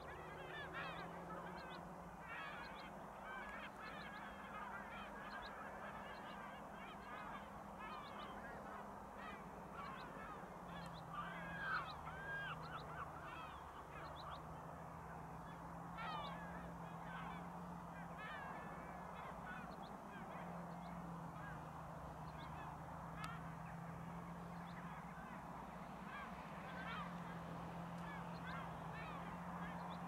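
A flock of gulls calling, many short overlapping cries throughout, over the steady low drone of a tractor engine pulling a plough.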